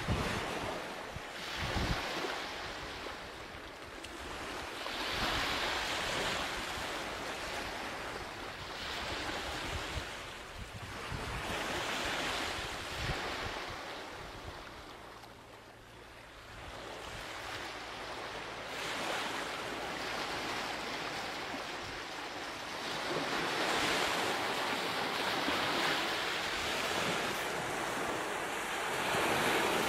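Ocean surf: waves washing in, swelling and fading every few seconds.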